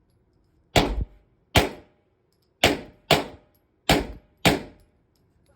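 Six pistol shots fired at an uneven pace, roughly one every half second to second, each a sharp crack with a short tail.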